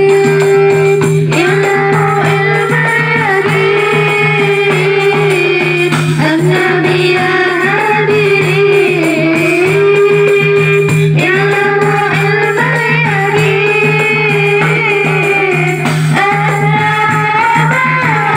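A woman sings a melodic line in phrases of about five seconds each, accompanied by a marawis ensemble's hand drums and jingling tambourine.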